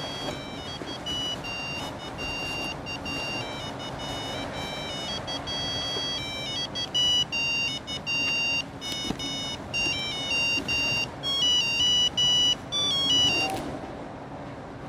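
A high electronic beeping melody of quick stepped notes, growing busier about halfway through and cutting off abruptly near the end. Under it runs the steady rumble of a metro train car in motion.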